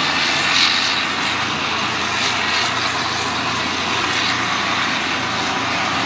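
Case IH combine's diesel engine running steadily.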